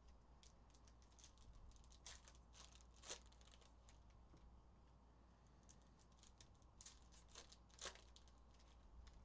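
Foil wrappers of Panini Prizm basketball card packs being torn open and crinkled by hand: faint, scattered crackles, the sharpest about two, three, seven and eight seconds in.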